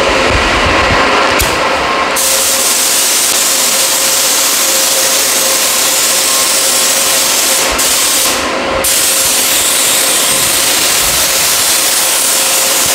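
Compressed-air paint spray gun hissing steadily as it sprays engine paint, spraying nicely, with short breaks where the trigger is let off, once about a second and a half in and again around eight seconds in. A steady hum runs underneath.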